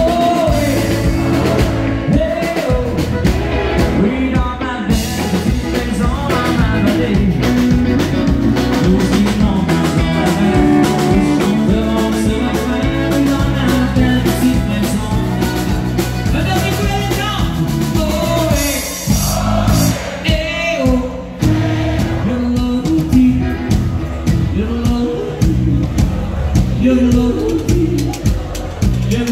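A live country band playing a song, a man singing over electric guitar.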